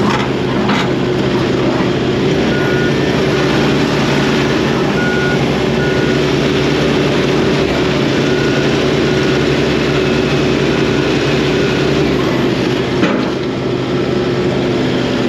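John Deere 135D excavator's Isuzu diesel engine running steadily under throttle, with a short high beep repeating at even intervals through the middle stretch.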